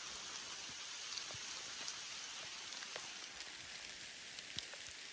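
Light rain falling steadily, with scattered single drops ticking close by.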